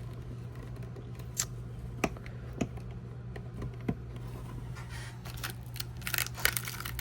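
Small plastic toy fridge parts clicking and tapping as they are handled and fitted into place: a few separate clicks, then a quicker run of clicks and rustling near the end.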